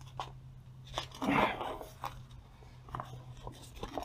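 Light rustling and a few soft clicks as a black Torklift SafeStep flexible safety panel is handled and folded over an aluminium RV step, with a brief louder rustle about a second and a half in. A faint steady low hum runs underneath.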